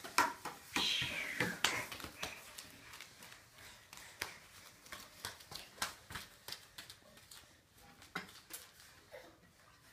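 Light wooden knocks and taps of toddlers climbing on a wooden climbing triangle and its slide ramp, with a short falling squeak about a second in.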